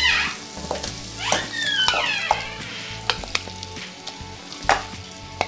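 Chicken in a wet green mint marinade going into hot oil with onions and tomato in a kadai, sizzling hard at first and again about a second and a half in. A spoon scrapes and knocks against the pan several times.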